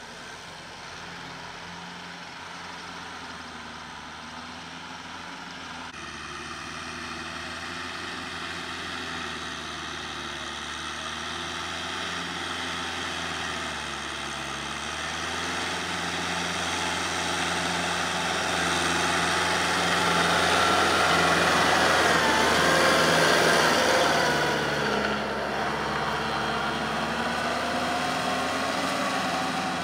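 Kubota M6040 tractor's four-cylinder diesel engine running steadily under load while it drives a rotary tiller through rice-field stubble, the tiller's churning of the soil mixed in. It grows louder as the tractor comes close, is loudest a little past twenty seconds in, then drops back.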